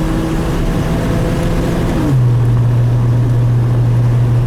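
2002 Chevrolet Trailblazer's inline-six engine and partly homemade exhaust droning steadily while driving; about two seconds in the pitch drops and the drone gets louder and holds steady. It runs evenly, with the cylinder 3 misfire fixed.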